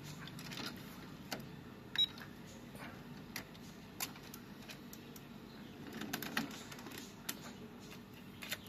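MiniDisc mechanism of a Victor UX-Z11WMD micro system clicking sharply every second or so over a faint low hum as it tries to read a disc, then going to eject near the end. The disc is not read, which the owner puts down to something inside, like a wire, getting caught.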